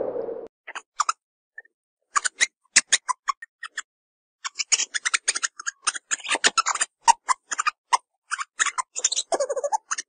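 Meerkat giving rapid, sharp clicking calls in irregular runs, with a short, lower, pitched call near the end.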